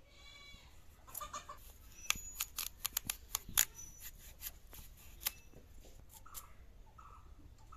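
Hen clucking: a short call at the start and a run of short, repeated clucks in the last two seconds. In between comes a quick series of sharp clicks and scrapes as new potatoes are peeled against a bonti blade.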